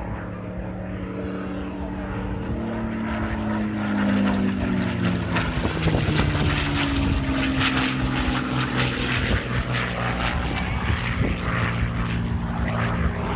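Supermarine Spitfire flying past overhead, its V12 piston engine and propeller growing louder about four seconds in and dropping in pitch as it passes.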